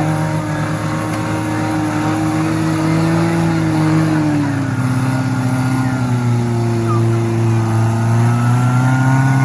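Off-road 4x4's engine running hard under load. Its pitch holds steady, drops about halfway through, then slowly climbs again near the end.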